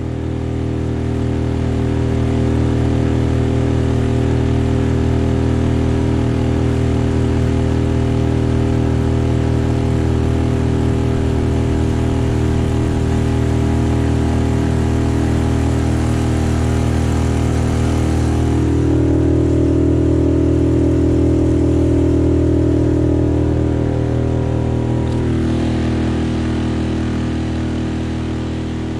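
Small outboard motor running steadily, pushing the boat along. It fades in at the start and grows slightly louder and fuller for a few seconds about two-thirds of the way through.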